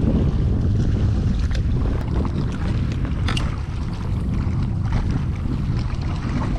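Wind buffeting the microphone as a steady low rumble, with scattered light clicks and taps on top.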